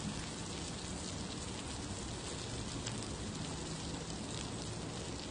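Pork belly and kimchi sizzling steadily on a hot griddle, with a few faint clicks.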